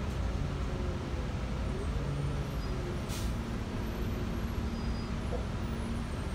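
Inside a 2008 New Flyer C40LFR natural-gas city bus: a steady engine and road rumble, with a short sharp hiss of air from the bus's air system about three seconds in.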